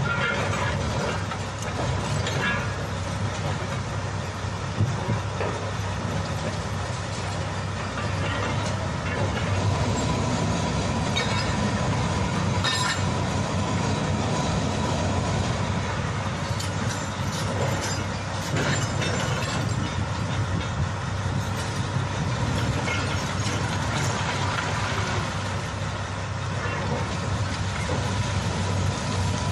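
Excavator's diesel engine running steadily under load, with scattered clanks and scrapes from its work.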